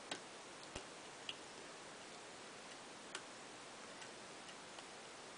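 Lock pick and tension wrench working the pins of a 6-pin Schlage-style knob cylinder during single-pin picking: a few sharp little clicks in the first three seconds and fainter ticks later, over a steady hiss.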